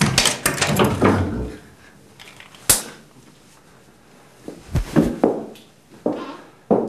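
Door and movement sounds: a quick rattle of clicks and knocks, one sharp click a little under three seconds in, then several dull thuds.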